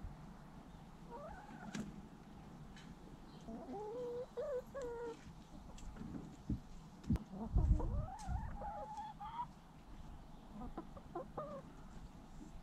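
Domestic hens clucking and making drawn-out, wavering calls in several bouts, with a few dull low thumps about halfway through.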